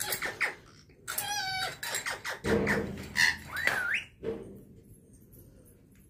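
Rose-ringed parakeet calling: a run of chattering calls and whistled pitch glides, falling quiet about four seconds in.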